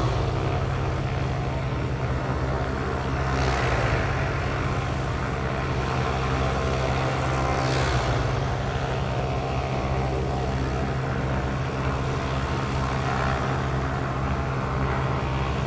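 Airliner engines running: a steady low drone with two brief rises in hiss, about three and eight seconds in.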